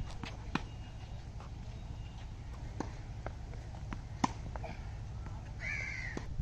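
Tennis racket striking the ball and the ball bouncing on the hard court: sharp pops a second or more apart, the loudest about four seconds in, over a steady low rumble. Near the end comes a short high wavering call.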